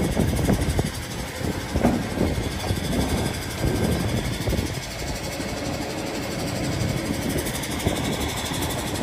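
Heavy wrecker's engine running steadily at idle, a low, rough rumble.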